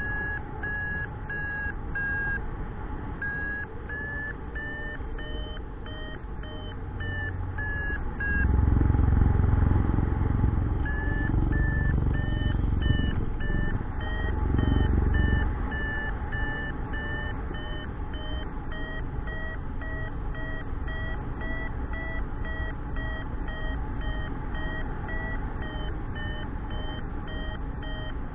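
Paragliding variometer beeping in short repeated tones, signalling a climb; the beeps come about once a second at first and quicken to roughly two a second in the latter half. Wind buffets the microphone with a loud low rumble in the middle, the loudest sound.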